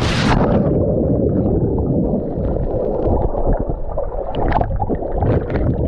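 A splash as a person plunges into the sea, then the muffled churning and bubbling of water heard through a waterproof action camera held underwater and at the surface, with small splashes as it breaks the surface.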